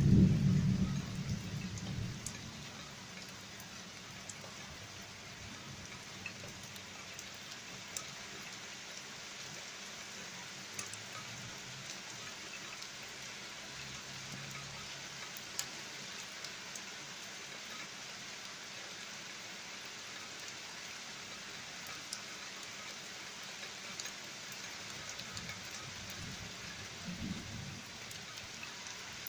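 Heavy rain from a summer thunderstorm falling steadily, with scattered sharp drip ticks close by. A peal of thunder rumbles at the start and fades over about two seconds, and a shorter, fainter low rumble comes near the end.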